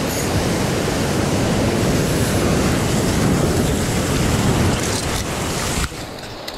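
Sea surf breaking and washing over rocks close by, a loud continuous rush of water with wind buffeting the microphone. The level drops suddenly about six seconds in.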